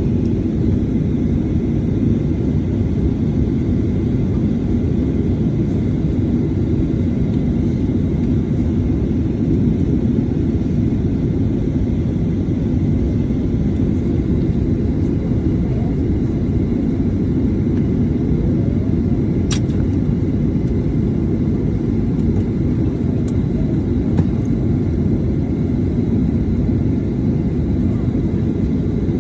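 Steady low rumble of a Boeing 737-800's CFM56 engines at idle, heard from inside the cabin, with a faint steady whine above it. A single sharp click comes about twenty seconds in.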